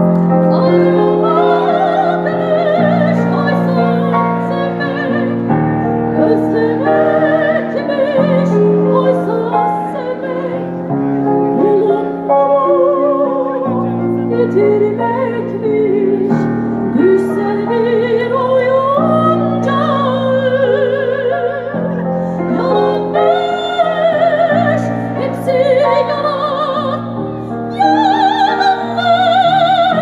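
A female soprano sings live in an operatic style, with wide vibrato and long gliding phrases, over sustained instrumental chords that change every couple of seconds. The sound is amplified through the stage sound system.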